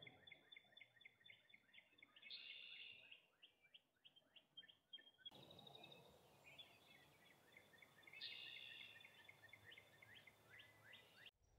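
Faint songbird singing: quick runs of short, repeated high chirps, with a brief higher flourish twice.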